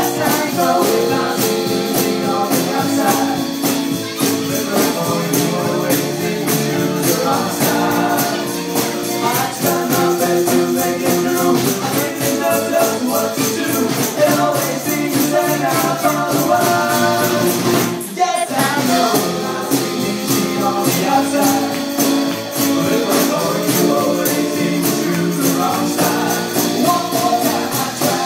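Live band music with pitched instruments over a steady, fast beat of hand percussion; the music drops out for a moment about two-thirds of the way through, then carries on.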